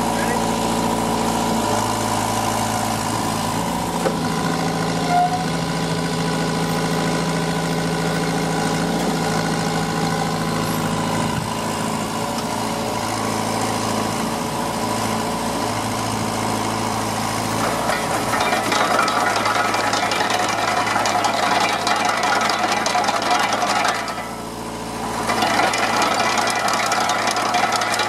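Deutz diesel engine of a Vermeer RT650 trencher running steadily while the hydraulic trencher boom is worked. A louder clatter joins about two-thirds of the way through and drops away briefly near the end.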